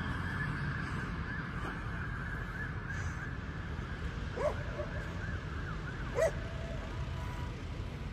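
Steady low rumble of street traffic, with two short honk-like calls about two seconds apart.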